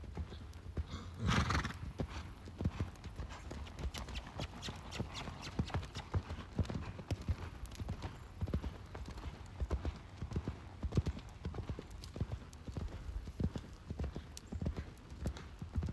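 Hoofbeats of a horse cantering on sand arena footing: a steady run of dull thuds. A short rush of noise about a second and a half in is the loudest moment.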